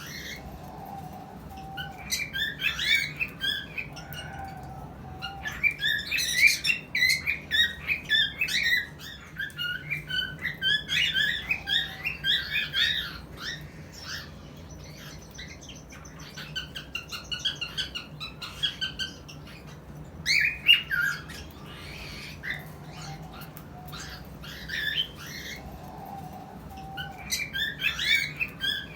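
Cockatiels chirping and whistling in rapid runs of short squawky calls, with quieter pauses between bouts: the calls of a breeding pair, given as their mating call.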